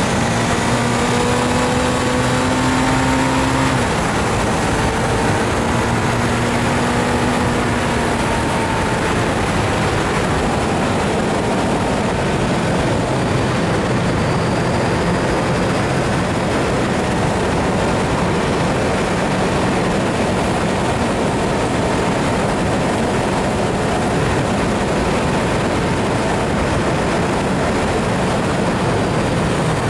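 Motorcycle ridden at road speed: steady wind rush on the action camera's microphone, with the engine's hum audible in the first several seconds before it is buried under the wind.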